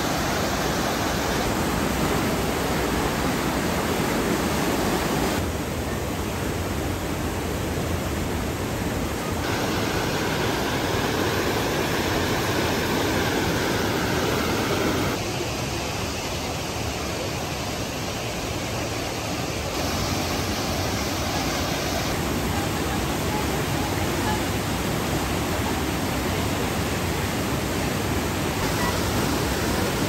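Upper Düden Waterfall: a steady, loud rushing of falling water.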